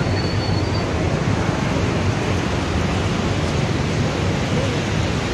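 Steady rush of water pouring out of an overflowing lake, an even, unbroken noise.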